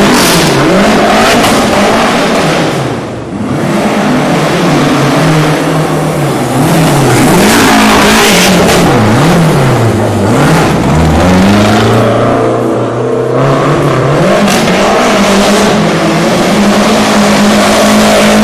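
Lancia Delta rally car's engine revving hard, its pitch swinging up and down in quick waves about once a second, then held high and steady for the last several seconds.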